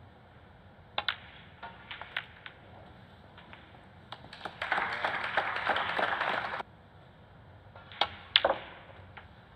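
Snooker shots: the sharp click of the cue tip on the cue ball and balls knocking together, a handful of clicks about a second to two seconds in. A burst of audience applause follows from about four and a half seconds and cuts off suddenly, then two more sharp ball clicks near the end as the next shot is played.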